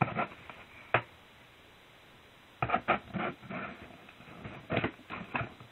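Loosely stuck packing tape being pulled off a cardboard parcel, with rustling and knocks of the cardboard being handled. A few sharp clicks in the first second, a short pause, then irregular handling noise from about two and a half seconds in.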